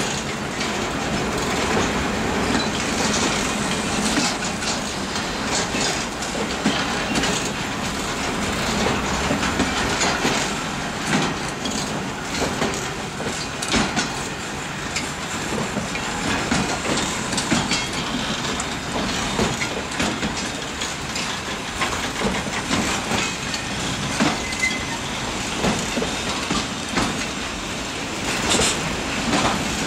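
Very long freight train's wagons rolling past, a steady rattle with repeated wheel clicks over rail joints.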